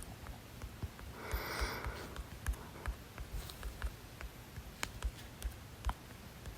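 A person's breathing, with a sniff-like breath about a second and a half in and several short, sharp clicks scattered through.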